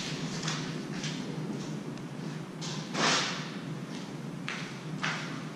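Tools being handled and set down: scattered short knocks and rustles, the loudest about three seconds in.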